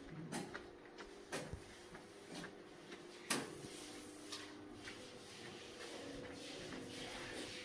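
Footsteps through a glacier ice cave: a soft step or knock about once a second, the sharpest about three seconds in, over a faint steady hum.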